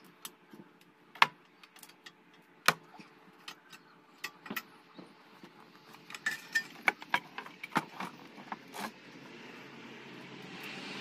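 Metal knocks, clinks and taps as a small electric cable hoist is unhooked from a steel lifting arm and set down on a wooden bench. Two sharp knocks come in the first few seconds, then a run of lighter clicks, with a steady rushing noise building near the end.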